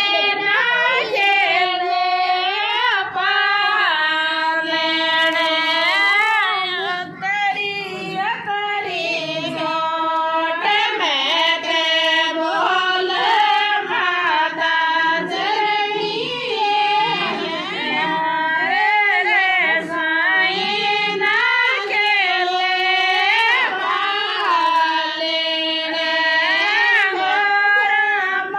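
A woman singing a Rajasthani folk devotional song to Tejaji, solo, in a high voice with long held notes that bend and slide in pitch.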